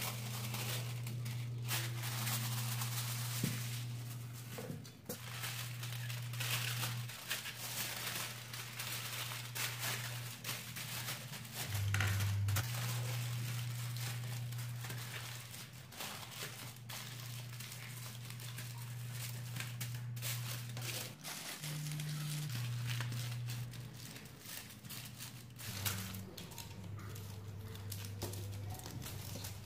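Aluminium foil crinkling and rustling as it is unrolled and pressed and folded around the rim of a round baking pan, over soft background music with a slow, steady bass line.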